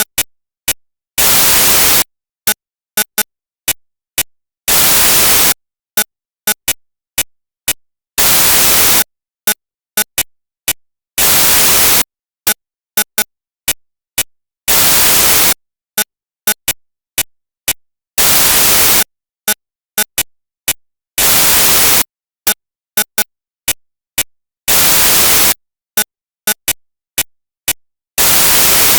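Loud bursts of static hiss, each just under a second long, repeating about every three and a half seconds, with sharp clicks ticking between them in an uneven rhythm.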